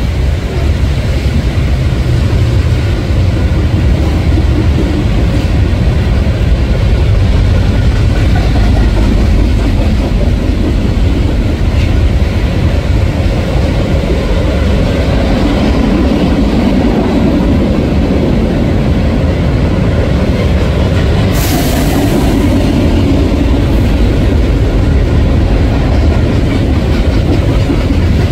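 Freight cars of a Canadian National manifest train rolling steadily past on an overpass: the noise of steel wheels on rail. A brief high hiss comes about three-quarters of the way through.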